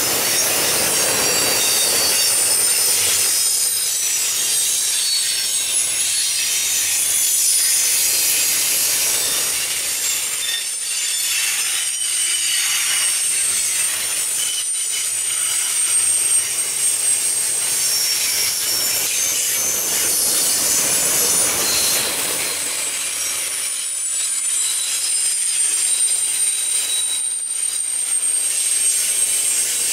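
Double-stack intermodal well cars rolling past, steel wheels running on the rails with a steady rumble and thin high-pitched wheel squeals that waver in pitch.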